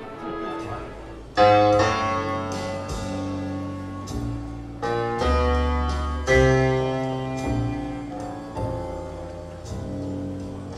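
Piano music played back through a hi-fi demonstration system. Chords are struck sharply every second or so and ring away, over deep bass notes.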